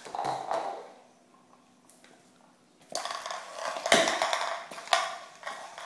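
A cup being knocked and scraped across a tile floor by a small dog at play: a few knocks, a quiet gap of about two seconds, then a quick clatter of knocks, loudest about four seconds in.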